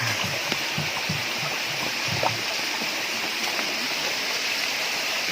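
Steady rush of a stream flowing out of a cave mouth, with a few short, soft low knocks in the first couple of seconds.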